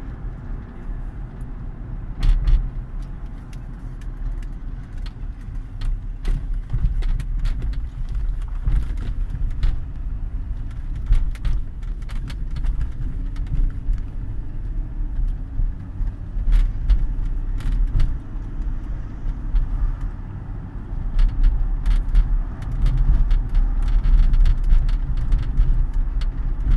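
A car's creaks and rattles over a steady low road rumble, heard from inside while it drives: short, irregular clicking creaks come and go throughout.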